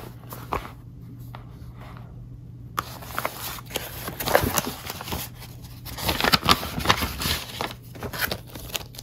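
Paper envelopes and a plastic sleeve rustling and crinkling as they are handled. It starts about three seconds in, over a faint steady low hum.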